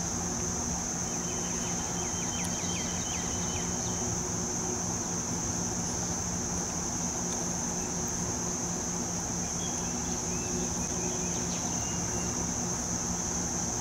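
Steady high-pitched insect drone over a low steady hum, with a few faint short chirps about two seconds in and again near ten seconds.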